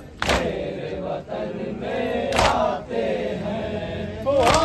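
A group of men chanting a Muharram noha in unison, with a sharp slap landing three times about two seconds apart in time with the chant, typical of matam chest-beating.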